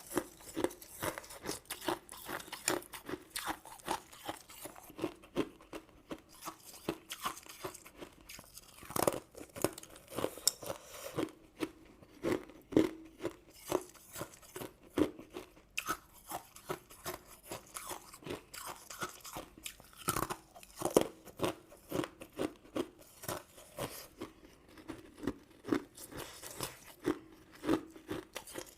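Close-miked crunching and chewing of crisp, sugar-coated sweets: a steady run of small crunches a few times a second, with a handful of louder snapping bites.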